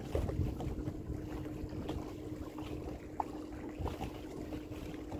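A boat's motor running steadily, with an even hum under low rumble, and wind buffeting the microphone.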